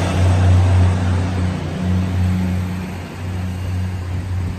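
DR3100 diesel multiple unit pulling out, its diesel engines droning steadily under a rush of wheel and running noise. The rush dies down after about three seconds while the low engine drone carries on.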